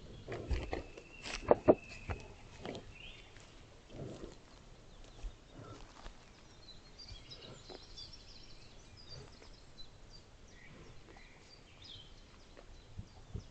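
Woodland birds singing faintly, with a few sharp knocks in the first seconds, two loud ones close together about a second and a half in.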